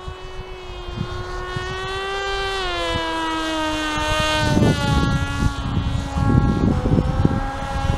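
Electric motor and propeller of a Teksumo flying-wing RC plane in flight: a steady whine with many overtones that grows louder and slides down in pitch, then rises again near the end. Wind buffets the microphone underneath.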